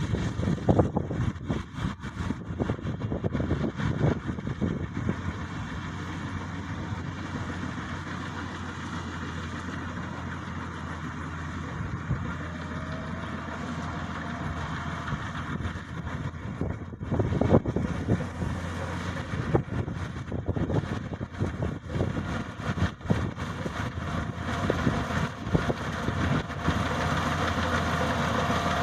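Maxxi Bimo 102 combine harvester's engine running steadily, with frequent short knocks and clatters from the machine. A faint whine rises in the middle and again near the end.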